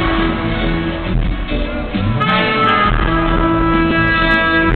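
A live band playing in a concert hall, heard from the audience, with long held notes.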